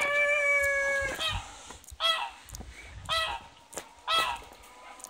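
The end of a rooster's crow, a long held note that stops about a second in, followed by four short goose honks about a second apart.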